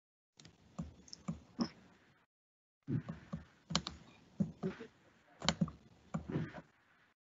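Scattered clicks and taps of a computer keyboard and mouse, in two spells with a short pause between. The sound cuts in and out sharply, as a video call's noise gate opens and shuts.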